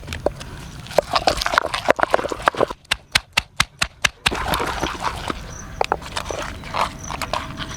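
Shallots being crushed in a stone mortar (ural) with a pestle: repeated sharp strikes, with a quick run of about five a second midway.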